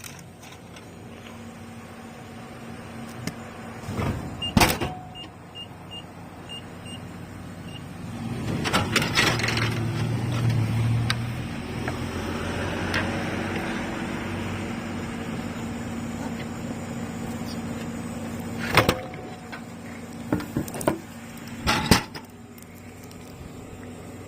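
Japanese drink vending machine in use: a sharp click, then a row of six short electronic beeps. About 8 s in there is several seconds of louder clattering noise with a low hum as the drink is dispensed, and near the end a few sharp knocks.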